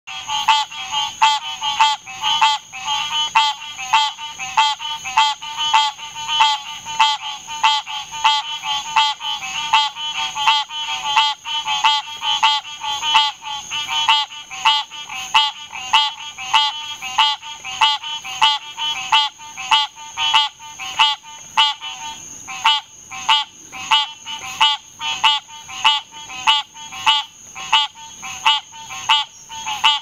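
Male green tree frog calling over and over, one short call after another at an even pace of roughly once a second, with its vocal sac inflating on each call. A steady high-pitched tone runs behind the calls.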